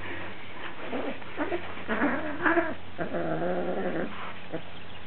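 Lynx point Siamese cat in heat calling: several short low moaning calls, then a longer drawn-out one about three seconds in, the vocal calling of a queen in season.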